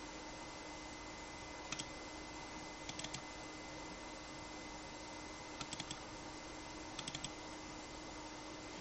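Light clicks in four short clusters of two to four, like keystrokes or switch clicks, over a steady hiss and a faint steady electrical whine.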